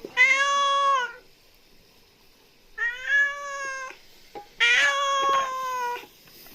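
Domestic cat meowing three times, each meow about a second long with short pauses between.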